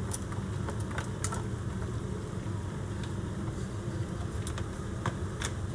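Sliced peppers and onions tipped from a plastic container into a foil pan and spread by hand, giving a few light clicks and rustles over a steady low background hum.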